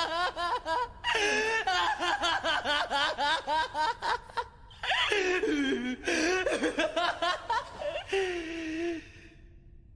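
Human laughter sound effect: a voice laughing in quick, repeated "ha-ha" pulses, with short breaks about a second in and about four and a half seconds in, stopping about nine seconds in.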